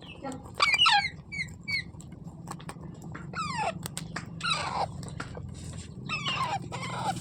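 Parrot giving a series of short calls that fall in pitch, about six over several seconds, with a few sharp clicks in the middle, over a steady low hum.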